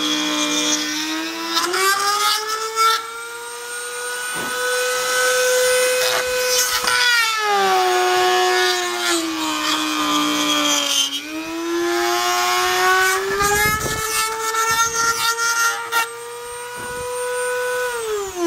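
Dremel rotary tool in a router table, running at high speed and routing slots in a Kydex sheet. Its whine drops in pitch twice as the bit bears into the plastic and rises again between cuts. Near the end it is switched off and winds down in a falling whine.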